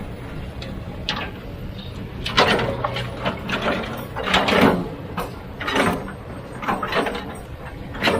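Heavy machinery working: a diesel engine running steadily under a string of irregular scrapes and clanks, roughly one every second.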